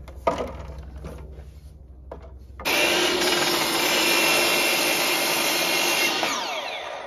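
Electric miter saw (chop saw) cutting a 10-degree angle across a 2x6 board. A sharp click and handling noise come first; about two and a half seconds in the saw starts with a jump in level and runs loud and steady through the cut, and its pitch falls near the end as the blade winds down.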